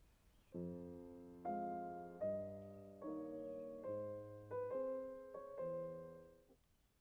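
Upright piano played slowly: about eight chords, each struck and left to ring, stopping near the end.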